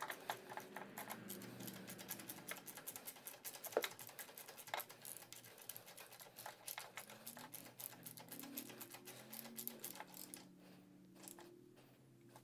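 Quiet, quick runs of ratchet-wrench clicks as a new spark plug is tightened down with a spark plug socket.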